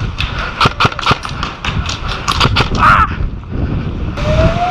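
A run of irregular sharp clicks and snaps over a steady low wind rumble on the microphone. Near the end, a siren starts, rising in pitch.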